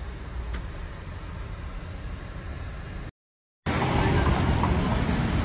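Low, steady rumble inside a parked car's cabin, with one faint click about half a second in. After a brief dropout just past the middle, louder outdoor street traffic noise.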